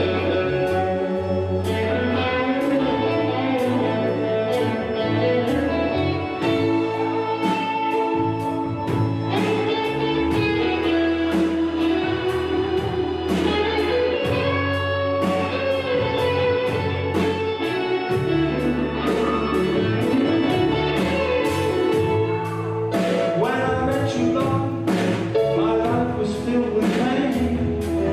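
Music with a steady beat, including guitar.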